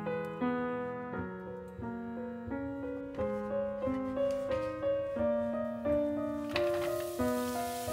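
Soft background piano music, a calm melody with a new note about every half second. About six and a half seconds in, food starts sizzling in hot oil in a pan, a steady hiss under the piano.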